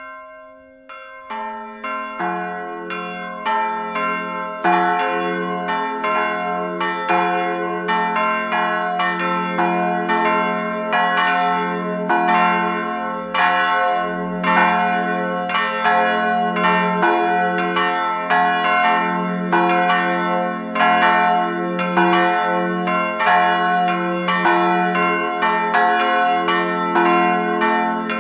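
Three church bells ringing together, coming in one after another in the first two seconds, then striking in a continuous repeating round of about two strokes a second, each stroke ringing on into the next.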